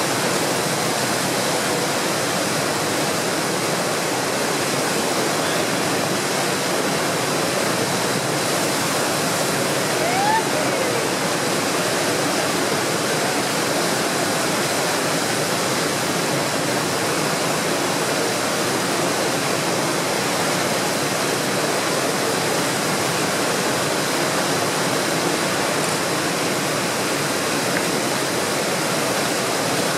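Skookumchuck tidal rapids: fast tidal current pouring over a large standing wave and breaking into whitewater, a steady rushing of water that does not let up. The flow is at a very large tidal exchange.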